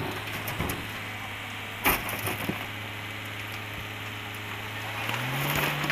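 Tipper dump truck's diesel engine running steadily while its raised bed tips out a load of soil, with a sharp knock about two seconds in. About five seconds in the engine revs up and holds a higher pitch as the bed is pushed higher.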